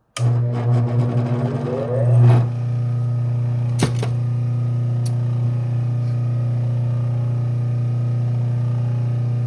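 Electric motor of a powered leather stropping wheel switched on, winding up in pitch over about two seconds and then running with a steady hum. A sharp click about four seconds in.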